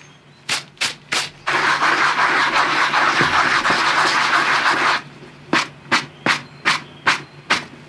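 Fine-grit sanding block rubbing over scratched leather on a handbag. Three short strokes, then about three and a half seconds of continuous fast rubbing, then a run of single strokes about two a second.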